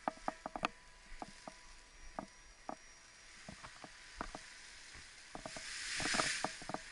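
Light scattered ticks, then a rushing swish that swells and fades over about a second near the end as the paraglider wing comes down and its fabric settles onto the grass.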